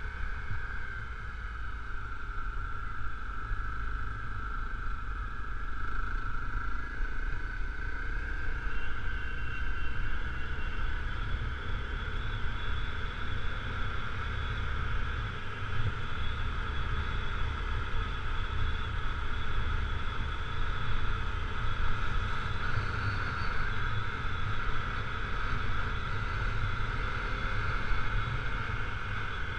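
Honda CRF250L's single-cylinder four-stroke engine running steadily at cruising speed, over a constant low rumble of wind on the microphone.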